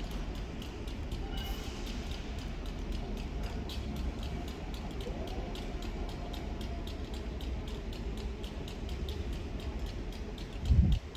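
Low, steady rumble of a locomotive-hauled train running away into the distance, with a fast, even ticking running throughout. Near the end comes a short, loud low-pitched burst.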